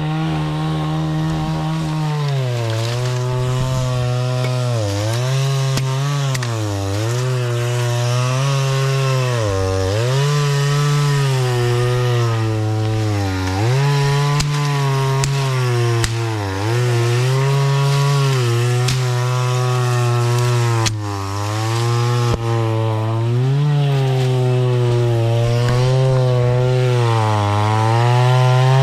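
Two-stroke chainsaw cutting through wood, its engine pitch dipping again and again as the chain bogs down in the cut and picking back up between cuts.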